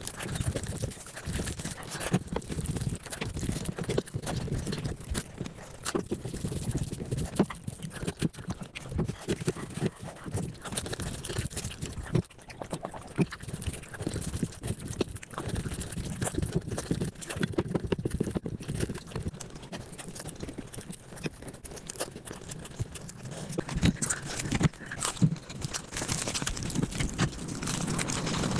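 Mukbang eating sounds sped up to five times normal speed: a dense, rapid run of chewing, smacking and wet mouth clicks.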